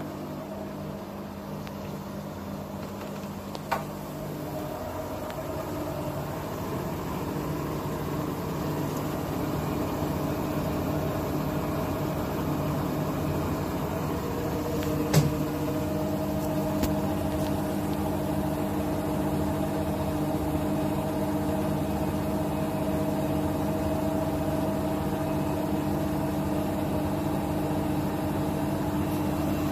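Bosch WAT28490NL washing machine spinning its drum on a spin-only cycle: a steady motor hum and drum whir that slowly grows louder, with a single sharp click about fifteen seconds in.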